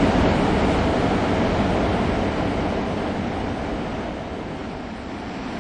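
Steady rushing background noise on a cruise ship's open deck, slowly fading over the seconds.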